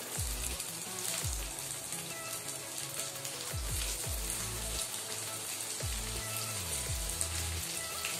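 Chopped onions sizzling in hot mustard oil in a kadai over a medium gas flame, a steady frying hiss. Background music with low bass notes plays underneath.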